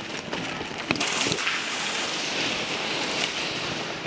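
A few sharp single pops about a second in, typical of airsoft guns firing semi-auto, over a steady hiss.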